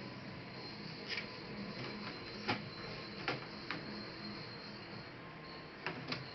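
Scattered small clicks and taps, about six of them at irregular spacing, from laptop parts and tools being handled, over a steady low background hum.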